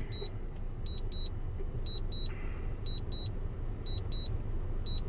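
Drone controller's low-battery warning beeping: short high double beeps, one pair about every second, over a steady low rumble.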